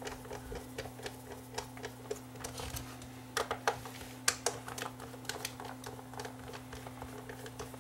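Small irregular clicks and ticks of a multi-bit screwdriver turning tiny screws in a camcorder's plastic case, with a few sharper clicks a little past the middle, over a faint steady hum.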